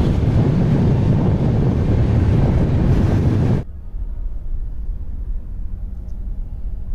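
Moving passenger train's running noise with wind buffeting the microphone at the open coach door. It cuts off abruptly about three and a half seconds in to a much quieter, steady low rumble and hum inside the closed air-conditioned coach.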